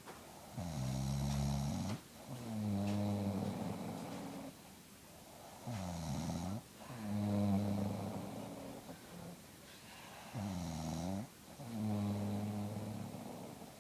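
An elderly woman snoring in a steady rhythm, about three breath cycles. Each cycle is a shorter snore followed by a longer, lower one.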